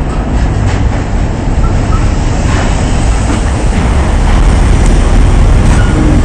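Firewood burning under a large cooking pan, a loud steady low rumble with a few scattered crackles.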